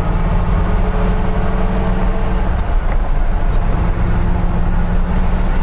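1955 Ford Fairlane's tri-power V8 running while driving, a steady engine drone with road and tyre noise heard from inside the cabin.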